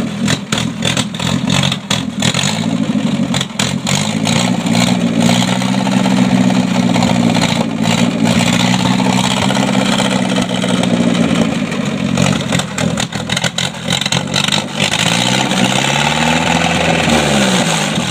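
A 1958 Land Rover Series One's four-cylinder petrol engine, out of its chassis, running for the first time after 20 years standing, with petrol poured straight into the carburettor to keep it going. It fires unevenly with sharp pops at first, then revs up and runs steadily. It sags about twelve seconds in, picks up again, and falls away near the end.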